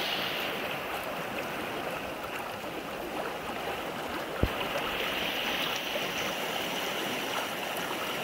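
Shallow creek water rushing steadily over rocks in a riffle. A single brief knock sounds about halfway through.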